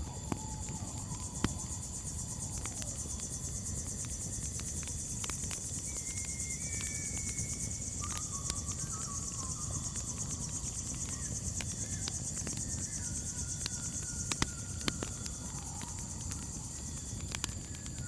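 Crickets chirping in a steady high shrill drone over a crackling campfire, with sharp pops scattered throughout and a low rumble underneath. A few faint wavering calls from another animal drift in midway.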